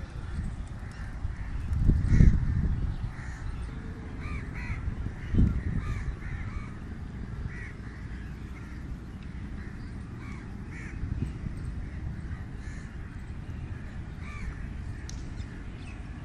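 Birds calling, with short scattered calls throughout. Two bursts of low rumble stand out, the loudest about two seconds in and another a few seconds later.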